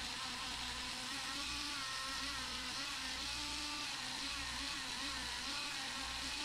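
Small high-speed rotary tool spinning a polishing wheel against a watch case: a steady high whine whose pitch wavers slightly as the wheel bears on the metal.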